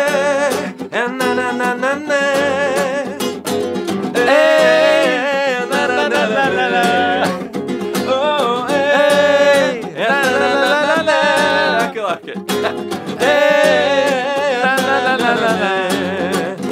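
A man singing a wordless 'na na na' chorus in short repeated phrases while strumming an acoustic guitar, played live.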